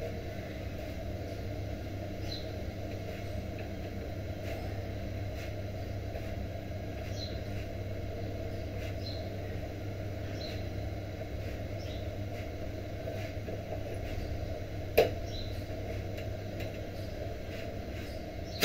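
Steady low rumble of a kitchen stove area while a bhakri cooks on a hot iron tawa, with faint light ticks from the flatbread. One sharp knock about fifteen seconds in, and a smaller one near the end as the bhakri is flipped back onto the tawa.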